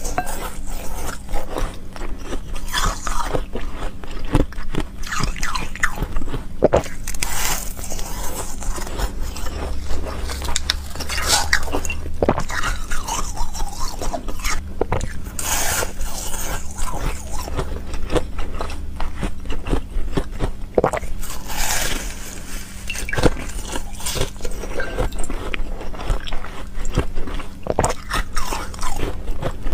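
Ice frozen in a water bottle being bitten and chewed close to the microphone: a continual run of crisp, irregular crunches.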